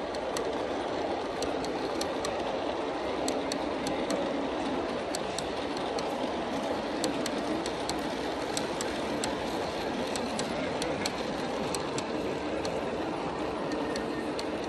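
G scale model freight train rolling past on outdoor track: a steady rolling rumble of plastic cars on metal rails, with frequent sharp, irregular wheel clicks.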